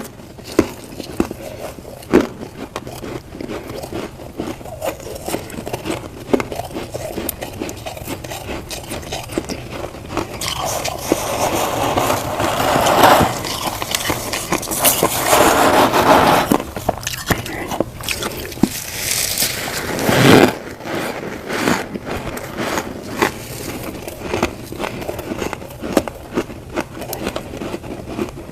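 Humidifier frost crunching as it is bitten and chewed, with crackles and clicks throughout. A louder stretch of crunching comes about ten to twenty seconds in.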